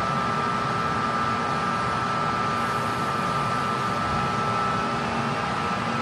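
Metro train noise: a steady rumble and hiss with a constant high whine, holding at an even level throughout.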